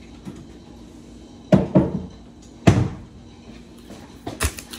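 Two heavy thuds a little over a second apart, each ringing briefly, like a door or cupboard banging shut, then a fainter knock near the end, over a faint steady low hum.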